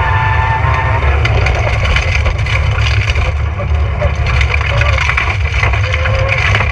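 Rally car driven hard on a stage: a loud, steady engine drone with heavy road and mechanical rattle over it.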